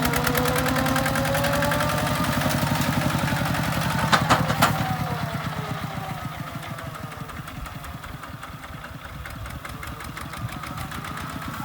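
Diesel engine running with a fast, even chug, its pitch sliding up and down. Two sharp knocks come a little after four seconds, then the engine drops back and runs quieter.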